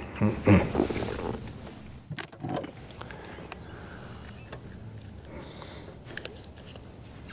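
A black crappie being handled and unhooked in a boat. There is a burst of knocking and rustling in the first second, then a few light clicks and rattles.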